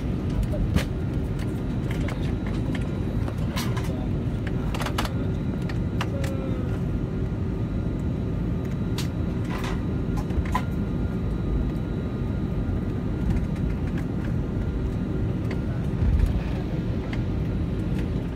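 Steady low rumble of an airliner's jet engines and airframe heard from inside the cabin as it taxis, with scattered light clicks and knocks.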